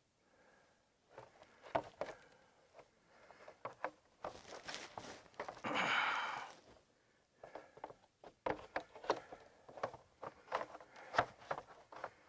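Irregular knocks, clicks and scrapes of hand work on a corrugated plastic culvert pipe, with a longer rasping sound about six seconds in.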